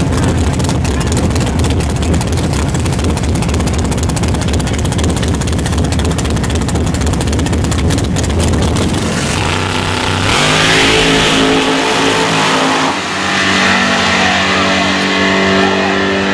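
Loud drag-race car engine, a dense rapid crackle at first. From about ten seconds in it turns into a held, steady-pitched engine note with a hiss above it. It cuts off suddenly at the end.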